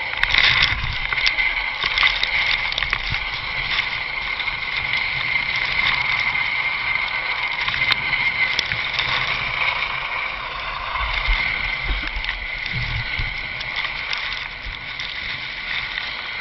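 Helicopter running on the ground with its rotor turning: a steady, high turbine whine over the buffeting of rotor wash and wind on the microphone, with a few knocks from handling.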